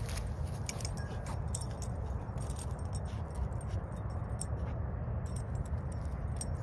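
Dog collar tags jingling in scattered light clinks as two dogs sniff and move about, over a steady low rumble.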